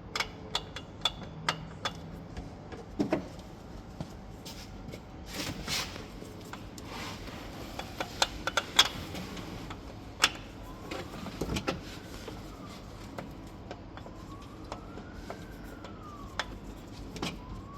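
Sharp metal clicks and knocks as a starter motor is worked into a Honda Pioneer 700 UTV's engine, being turned to line up its splines. From about ten seconds in a faint siren wails, rising and falling three times.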